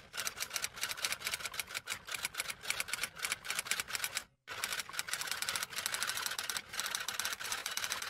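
Typewriter keys being struck in a fast, steady run of clacks, several a second, with a brief pause about halfway through.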